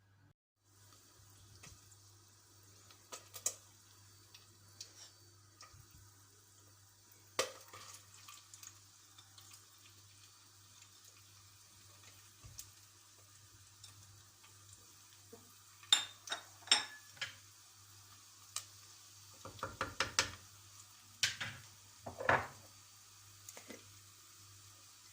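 Kitchen handling sounds of dishes and utensils: scattered clinks and knocks, with a busier run of louder clatters and a ringing clank in the second half.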